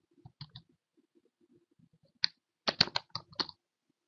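Computer keyboard keystrokes while typing. There are a couple of light taps at the start, a single key about two seconds in, then a quick run of about six keystrokes near the end.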